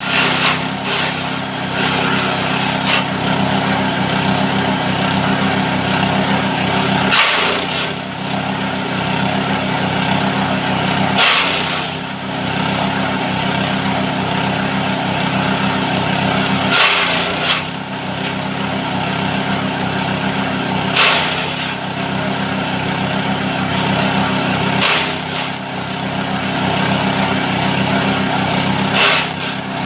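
Multifunction chopper machine running steadily on its small engine. About every four to six seconds there is a short burst of harsher noise, and at each burst the engine briefly dips in pitch, as when material is fed into the chopper and loads it.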